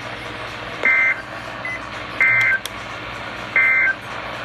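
Three short bursts of EAS digital data tones, a raspy two-tone warble over weather-radio static, about a second and a third apart: the End of Message (NNNN) code that closes a NOAA Weather Radio warning.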